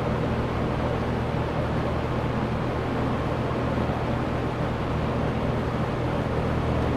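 1983 Lakewood P-223 20-inch box fan running on its high speed: a steady rush of air over a low, even hum from its McMillan motor.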